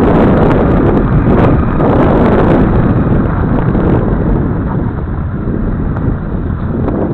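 Wind buffeting the microphone while a Honda CRF250L dual-sport motorcycle rides a gravel track, with its single-cylinder engine running under the rumble. It gets a little quieter after about four seconds.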